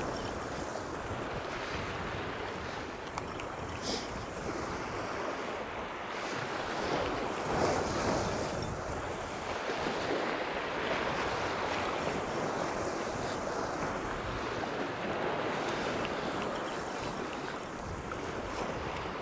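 Sea waves surging and breaking on a rocky shore, with wind buffeting the microphone; the surf swells louder about seven or eight seconds in.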